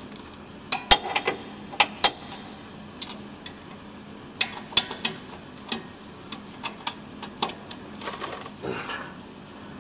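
Hand tools working a stuck catalytic converter mounting bolt: irregular sharp metallic clicks and clinks, some in quick pairs, with a short scrape about eight seconds in.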